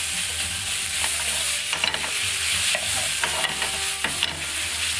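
Pork belly, garlic and kimchi sizzling in a frying pan while a metal ladle stirs them, with a steady hiss and scattered clicks and scrapes of the ladle against the pan.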